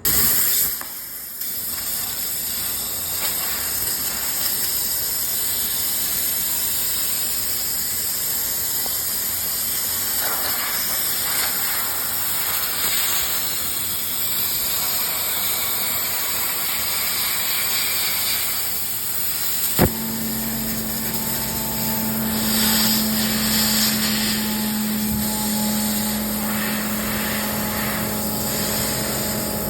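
5x5 Pro 2.0 laser cutting machine cutting a part, with a steady hiss throughout. About two-thirds of the way in there is a single click, after which a steady hum runs under the hiss.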